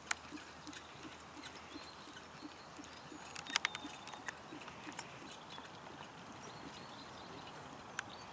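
A harness horse trotting on grass, hooves thudding softly in an even rhythm of about three beats a second that fades as it goes. A few sharp clicks stand out above the hoofbeats, the loudest about three and a half seconds in and near the end.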